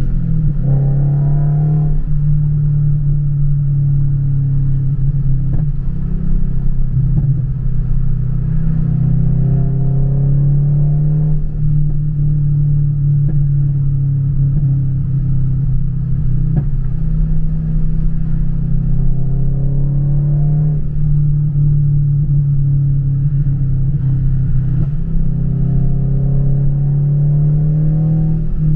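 Scion FR-S's 2.0-litre flat-four engine revved repeatedly on a pops-and-bangs exhaust tune, pitch rising and falling several times, with occasional sharp pops from the exhaust.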